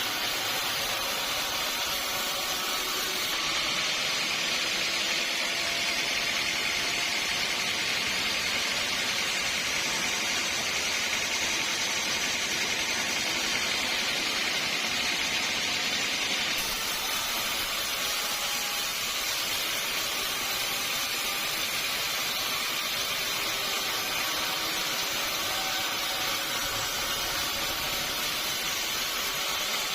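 Sawmill saw cutting through a teak log: a steady, high hissing machine noise. The hiss grows stronger about three seconds in and eases back down a little past halfway.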